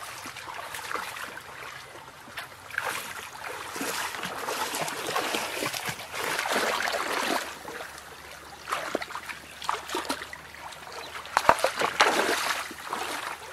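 Bare feet wading and splashing through a shallow rocky stream, the water sloshing in uneven bursts over a steady trickle, with the sharpest, loudest splashes shortly before the end.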